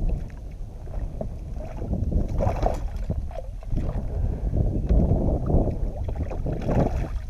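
Wind rumbling on the microphone and water against a fishing kayak, with scattered small knocks and clicks.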